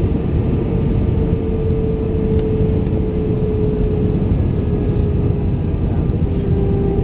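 Airbus A320 jet engines and airflow heard from inside the passenger cabin during the descent to landing: a steady loud rumble with a humming tone that slowly falls in pitch.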